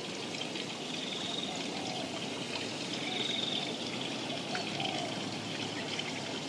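Water sloshing and trickling as a bucket is dipped into a small plastic garden pond and lifted out to bail it, a steady splashing and dribbling.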